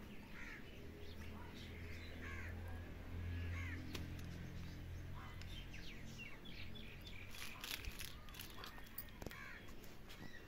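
Birds chirping and calling, with crows cawing among them. A low steady hum sits under the calls for the first half, and a few sharp clicks come near the end.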